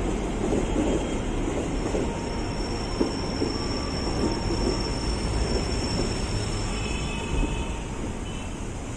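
A KRL Commuter Line electric train running along the track with a steady rumble of wheels on rails. A thin, high, steady squeal from the wheels is heard for a few seconds in the middle.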